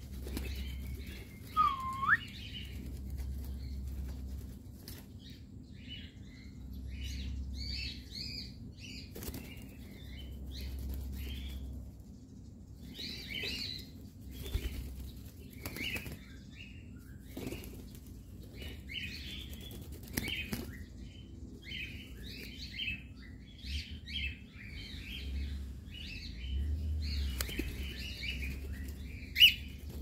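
Cockatiels chirping and fluttering their wings as they fly to and land on a raised hand, with a short gliding whistle about two seconds in. A low rumble comes and goes underneath.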